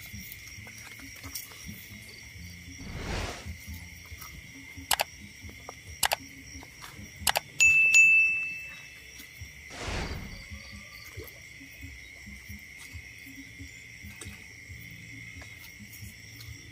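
Night insect chorus of crickets, a steady high trill. Near the middle come three sharp mouse clicks and a loud ringing bell chime from a subscribe-button animation, with two brief rustles.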